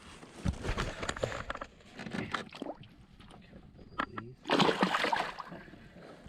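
Water sloshing and splashing around a small fishing boat, with light knocks and clicks and one louder splash about four and a half seconds in.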